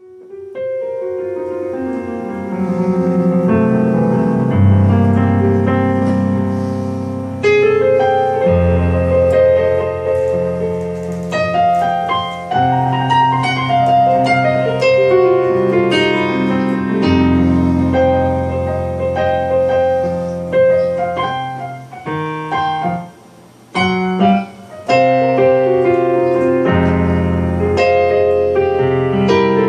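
Electronic keyboard played with a piano sound: chords over long held bass notes, with two short pauses about three-quarters of the way through.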